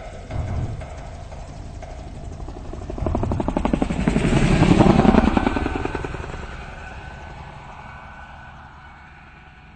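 A rapidly pulsing mechanical rumble, like a passing aircraft, that swells to its loudest about five seconds in and then fades away.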